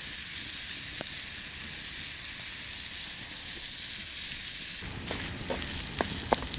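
Bacon and eggs sizzling in a pan over a campfire, a steady frying hiss that turns to sharper crackles and pops from about five seconds in.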